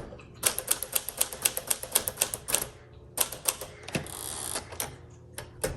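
1959 Smith-Corona Sterling manual typewriter being typed on: a quick run of key strikes, a short pause, then a few more strokes. A brief rasp follows about four seconds in.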